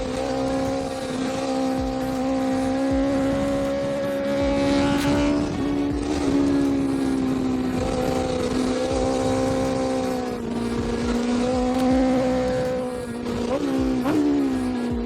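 BMW S1000RR inline-four running through an Akrapovic GP-style short slip-on exhaust, holding a fairly steady note with small rises and falls. Near the end the pitch flicks up sharply twice in quick succession, like two short throttle blips.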